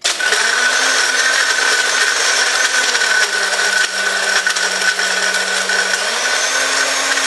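Bar blender running at full speed, crushing ice with rum, grenadine and sweet and sour into a frozen daiquiri. The motor's pitch drops about three seconds in and climbs back up about six seconds in.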